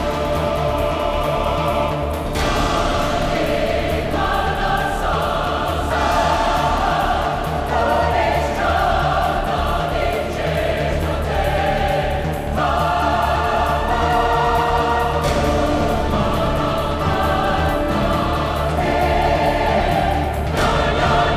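Choral music: a choir singing sustained chords that change every second or two, over a steady low bass.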